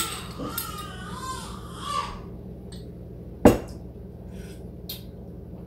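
Sorrel drink splashing out of a tilted glass carafe for about two seconds. About three and a half seconds in, the glass carafe knocks sharply down onto the countertop, followed by a few light clicks.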